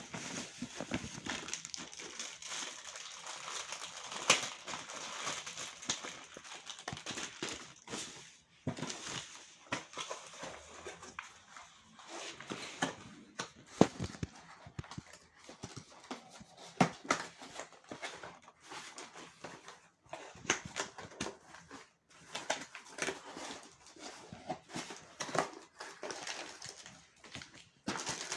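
Cardboard box and packaging being handled and unpacked: irregular rustling and crinkling with scattered knocks and clicks.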